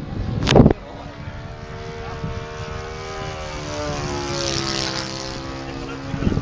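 Propeller-driven radio-controlled model of a Hawker Hurricane Mk1a flying over, its motor's tone rising and then falling in pitch as it passes. A brief loud noise burst comes about half a second in.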